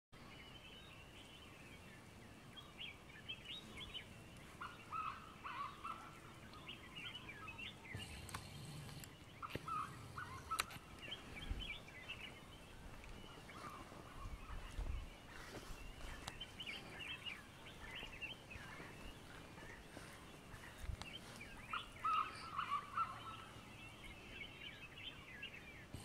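Dawn chorus of several birds: high chattering calls repeating throughout, with short, louder, lower-pitched call phrases three times.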